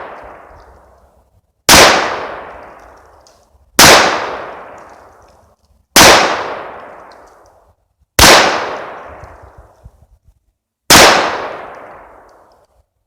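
Five pistol shots from a 1911 in .45 ACP firing 230-grain round-nose handloads, spaced about two seconds apart as slow aimed fire, each sharp crack ringing out and dying away over about a second.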